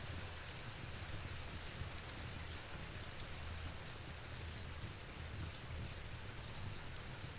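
Steady rain falling, with scattered faint ticks of drops over an even hiss and a low rumble underneath.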